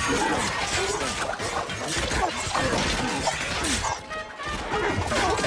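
Film battle soundtrack: orchestral score mixed with crashes and smashing impacts, dipping briefly about four seconds in.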